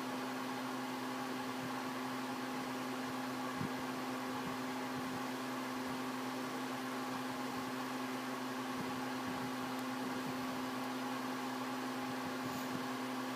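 Steady mechanical hum with one constant tone and a soft hiss, unchanging throughout.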